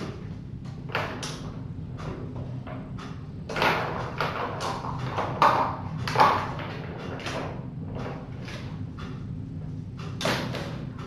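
Kittens playing: a run of scuffling, scratching and light thumping from paws and a toy on a hard floor, busiest and loudest in the middle, with a last burst near the end, over a steady low hum.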